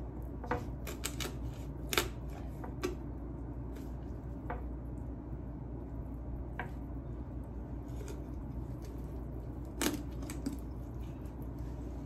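Ordinary scissors cutting through a partly frozen raw chicken along its backbone: irregular sharp snips and crunches of the blades on bone, the loudest about two seconds in and near ten seconds in, over a steady low hum.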